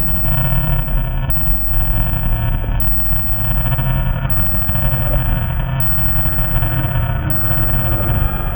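Designed horror ambience: a deep, steady, rumbling monster-growl drone with layered eerie tones above it, running continuously without a break.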